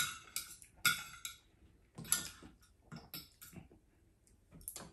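Metal spoon and fork scraping and clinking against a ceramic dinner plate while eating: a handful of short scrapes about a second apart, the loudest at the very start.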